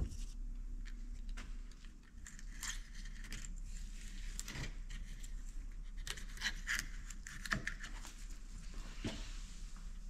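Scattered light metallic clicks and clinks of a Detroit Diesel DW-LS governor's parts being handled and worked by hand, over a steady low hum.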